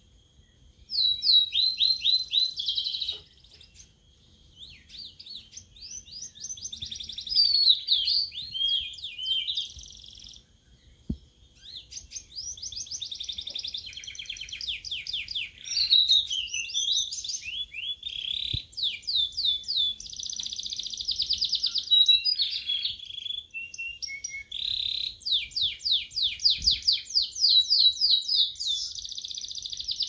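Caged sulingan laut (tledekan laut) songbird singing its full, open song (ngeplong) in loud bouts of fast trills and slurred whistled notes with short pauses, starting about a second in.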